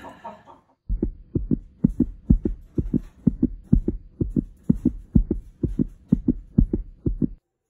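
Background music made of a fast, regular bass thump, several beats a second, over a faint steady tone. It cuts off abruptly shortly before the end.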